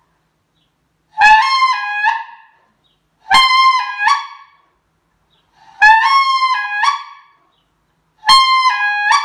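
Wooden SE14 white-fronted goose call of Siberian birch blown in a long-distance hail call: four calling phrases about two and a half seconds apart. Each phrase is a quick run of honks whose pitch jumps up and then back down.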